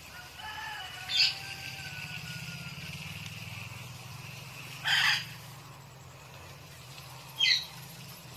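A white ring-necked parakeet giving three short, loud screeches: about a second in, at about five seconds, and near the end. A steady low hum runs underneath.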